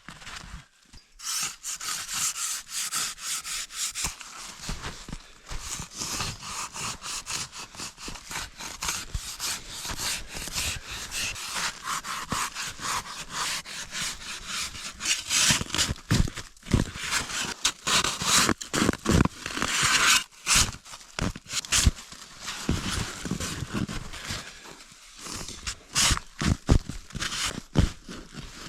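Snow shovel digging into packed snow: continual scraping and crunching strokes, with sharper knocks of the blade from about halfway through.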